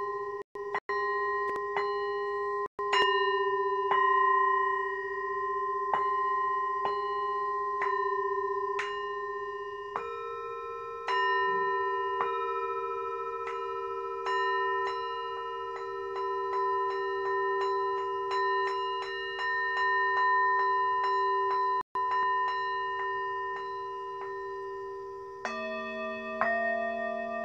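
Several singing bowls struck again and again, their ringing tones overlapping and sustaining. For a stretch in the middle the strikes come about twice a second, and a lower-pitched bowl joins near the end. There are a few split-second dropouts in the audio.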